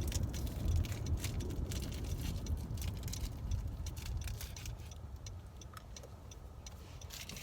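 A car's turn-signal indicator ticking steadily inside the cabin, over the low rumble of the car driving.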